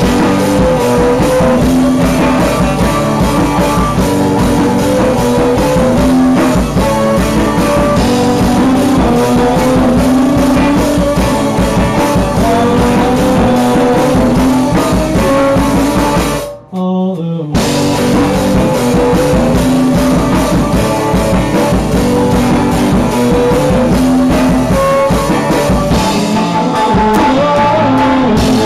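A rock band playing live in a small room: drum kit with cymbals and electric guitars. The music stops dead for a moment about two-thirds of the way through, then the band comes back in.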